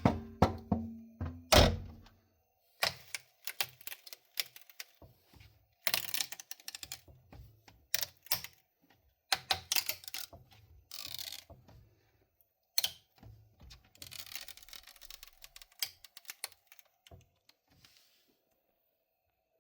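Irregular clicks, knocks and short rattles of hard objects being handled, in uneven clusters that stop about 17 seconds in.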